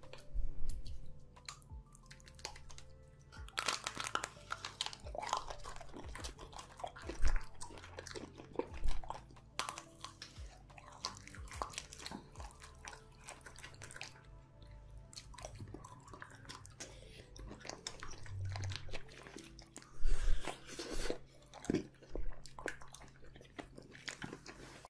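Close-miked biting and chewing of chocolate-coated ice cream bars: the hard coating cracks and crunches with each bite, over and over, with quieter chewing between bites.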